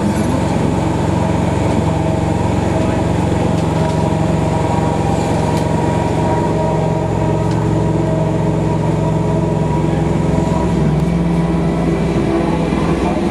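Class 313 electric multiple unit running at speed, heard from inside the carriage: steady wheel-and-rail running noise with a humming tone from the train's motors.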